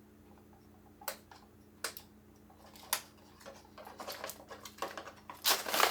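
Foil Mylar food pouch being handled and opened: a few sharp clicks about a second apart, then quick clicking and crinkling that grows louder near the end.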